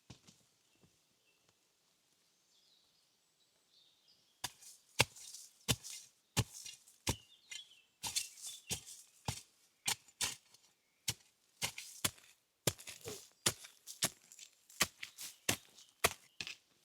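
Wood being chopped: a run of sharp, irregular chopping strikes, about one or two a second, starting about four seconds in.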